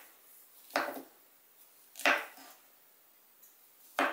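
Kitchen knife chopping on a cutting board: three sharp knocks about a second apart.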